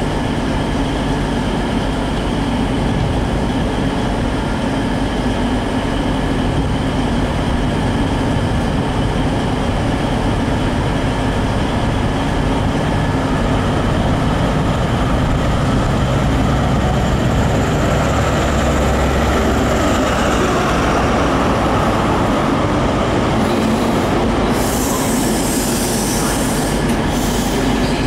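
A CrossCountry HST, Class 43 power car 43357 with its MTU diesel engine, runs into a station with a steady engine drone as it slows. In the last few seconds a louder hiss of wheels and brakes comes in as the coaches roll past.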